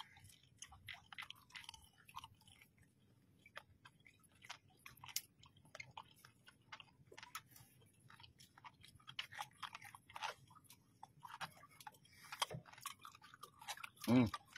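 A person chewing a mouthful of raw, live palotpot kinilaw with the mouth closed: many small wet clicks and smacks. There is one short vocal grunt near the end.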